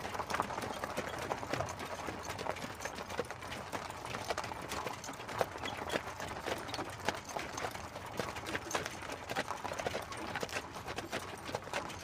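Hooves of a pair of horses clip-clopping steadily as they pull an open carriage, with many irregular sharp hoof strikes over the continuous noise of the carriage rolling along.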